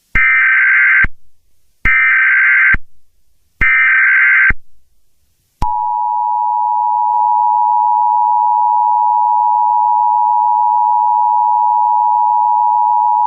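Emergency Alert System tones. Three short bursts of SAME header data come first, each a harsh digital warble about a second long. Then, about five and a half seconds in, the long, steady two-tone attention signal begins.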